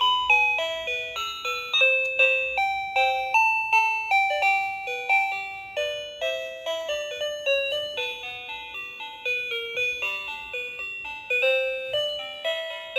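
Toy cordless phone playing an electronic tune: a melody of chime-like notes, each struck and fading, a few notes a second.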